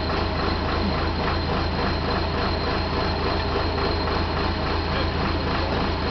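Auger drilling rig running steadily: a constant low engine drone with a fast, even mechanical clatter on top.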